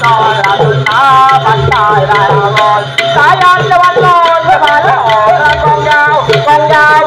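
Thai klong yao (long drum) troupe playing loudly: hand-beaten drums in a quick, dense rhythm with small cymbal strokes, under a wavering, bending melody line and a steady low tone.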